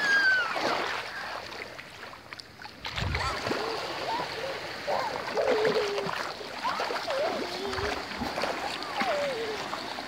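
Small sea waves washing steadily over the shallows, with the splashing of a toddler's bare feet wading through ankle-deep water. Short voice sounds with sliding pitch come and go over the wash, mostly in the second half.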